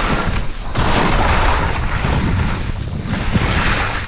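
Skis sliding and scraping on hard, crusty spring snow, a loud hiss that swells and eases twice with the turns, under the rumble of wind buffeting the microphone.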